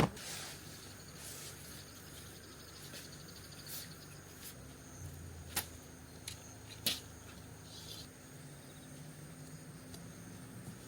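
Faint, steady high-pitched trilling of crickets, broken by a sharp click right at the start and a few softer clicks and knocks later on.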